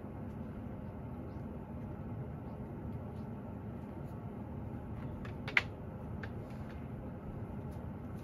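A cat licking its paw and washing its face: faint, irregular tongue clicks over a steady low background hum, with one sharper click about five and a half seconds in.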